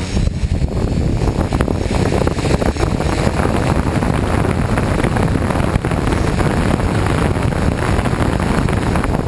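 Strong wind buffeting the microphone, loud and steady, over the running motors and propellers of a DJI F550 hexcopter.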